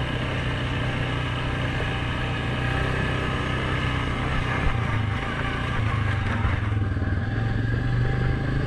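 Suzuki KingQuad 750 ATV's single-cylinder engine running steadily as the quad is ridden along a dirt trail.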